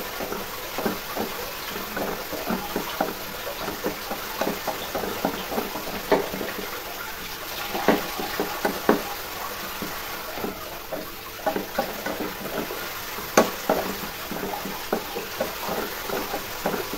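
Onion-tomato masala sizzling in oil in a nonstick frying pan while being stirred with a wooden spatula, with frequent knocks and scrapes of the spatula against the pan. The masala is being sautéed until the raw smell of the spice powder cooks off.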